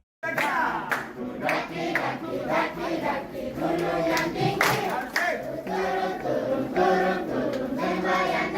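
A group of voices singing together, starting abruptly just after the start.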